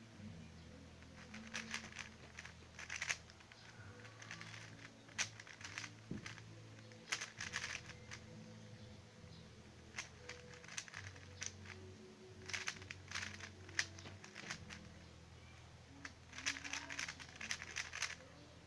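Yuxin Little Magic plastic speedcube being turned by hand in quick bursts of clicking, clattering layer moves, with pauses between bursts. Faint low background music runs underneath.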